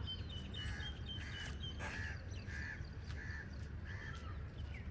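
A bird calling in a steady series of about six harsh calls, with a faster, higher twittering over them for the first two seconds, above a low steady rumble.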